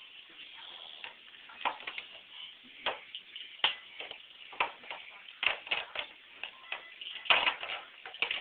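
Irregular knocks and clicks on hard plastic, one or two a second, the loudest about seven seconds in: a baby banging and fiddling with the toys of an activity seat.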